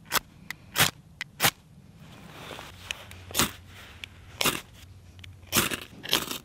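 Steel striker scraped down a ferrocerium rod over a pile of wood shavings: about ten short, sharp scrapes at irregular intervals, throwing sparks to light the tinder.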